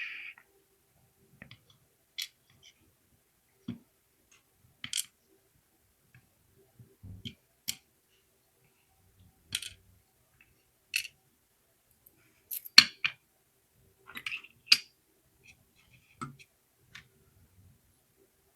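Irregular small metallic clicks and taps as a pin-tumbler mortise lock cylinder is taken apart: tools and small pins clicking against the metal plug and housing. A burst of louder clicks comes about two-thirds of the way through.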